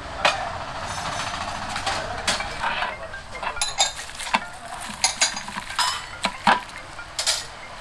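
Irregular clinking and scraping of metal utensils and dishes, over a low steady background rumble.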